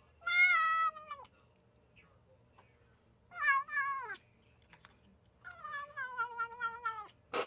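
A domestic cat meowing three times: a loud meow that drops in pitch at its end, a shorter one a couple of seconds later, then a longer, wavering meow near the end.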